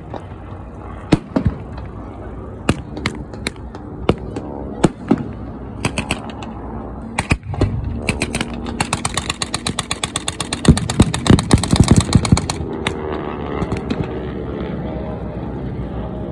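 Blank gunfire from a mock ground battle: scattered single shots, then about halfway through a rapid machine-gun burst lasting around four seconds, mixed with heavier bangs. Under it, piston-engined fighter aircraft drone overhead, the engine pitch sliding down as one passes.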